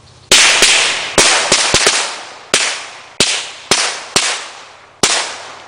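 A string of firecrackers going off: about a dozen sharp bangs at uneven intervals over about five seconds, several in quick succession in the first two seconds, then more spaced out.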